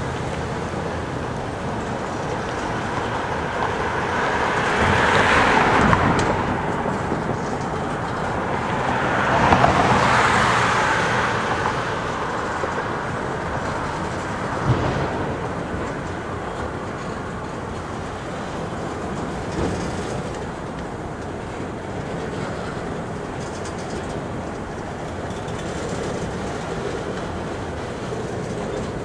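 Freight train cars rolling steadily past: continuous rolling and rattling noise from wheels and cars, swelling louder twice in the first half, with one sharp clank about halfway through.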